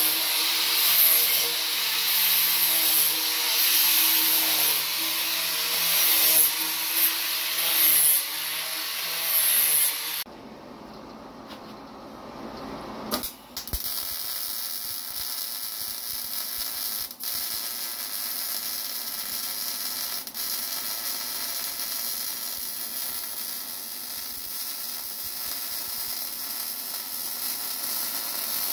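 Corded angle grinder running against the steel axle tube of a Ford 8.8 rear axle: a steady high whine over a grinding hiss, stopping about ten seconds in. After a short lull of a few seconds, electric arc welding on the axle tube sets in as a steady hiss.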